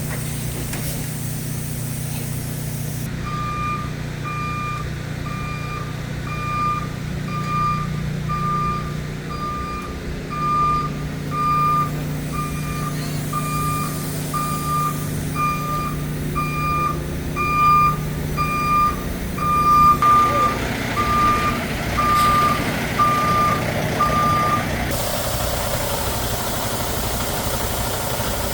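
Backup alarm on heavy equipment beeping steadily about once a second over the hum of a running engine. The beeping starts a few seconds in and stops a few seconds before the end, while the engine grows louder and rougher in the last third.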